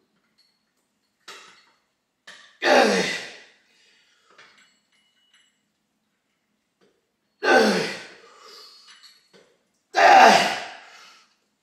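A man exhaling hard with each rep of a heavy lat pulldown set: three loud, breathy grunts of effort a few seconds apart, each fading quickly.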